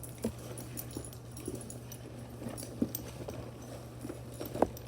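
Scattered light clicks and knocks of small fidget toys being handled and set down, one sharper knock near the end, over a steady low hum.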